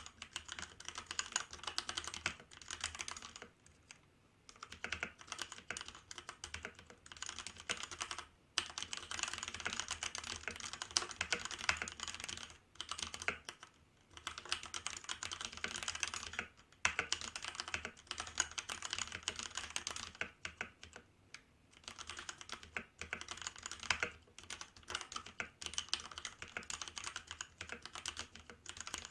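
Fast, continuous typing on a Hansung GO187 mechanical keyboard with Kailh Red linear switches: a dense run of key clacks, broken by short pauses every few seconds.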